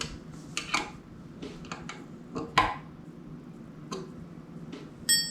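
Scattered metal clicks and knocks of tools and bike frame parts being handled during assembly, with a short metallic ring near the end.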